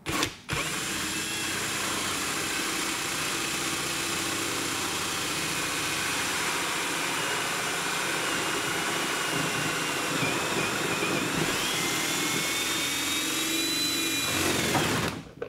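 Cordless drill spinning a hole saw through a ceiling tile, under a clear plastic dust-catching dome. A short burst at the start, then steady cutting with a whine that rises in pitch about twelve seconds in, stopping near the end.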